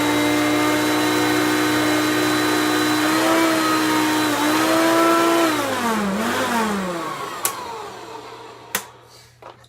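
Hoover PowerMax upright vacuum cleaner running with a steady whine on a test run with a freshly fitted bag, then switched off about five seconds in, its motor winding down with falling pitch. Two sharp clicks near the end.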